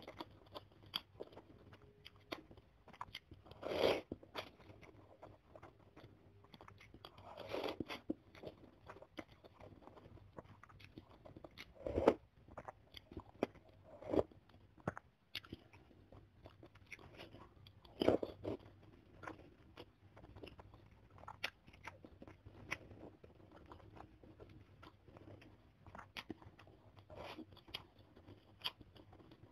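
Close-miked eating: noodles slurped and bakso tahu (tofu meatballs) chewed from a bowl of spicy broth. The sound is a run of small wet clicks, with louder bursts every few seconds.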